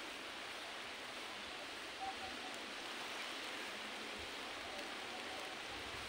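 Steady hiss of rain falling on leaves and surfaces. A short faint high note sounds briefly about two seconds in.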